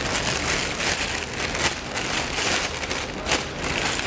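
Thin plastic wrapping crinkling and crackling as a lens is pulled out of it by hand, in dense irregular crackles.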